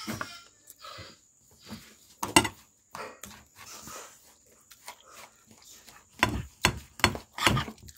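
Eating sounds: a person chewing and smacking their lips, mixed with irregular short knocks and clicks. The loudest comes a little over two seconds in, and several louder ones bunch together near the end.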